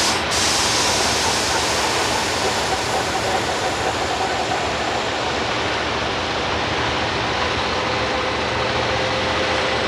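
Steady loud rushing machine noise of a self-propelled modular heavy-haul trailer's power pack and hydraulics running while it is maneuvered by remote control, with a faint hum under the rush.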